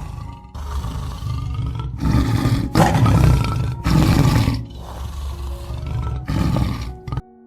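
Tiger roaring, a run of rough, loud roars each about a second long, one after another, that stops about seven seconds in.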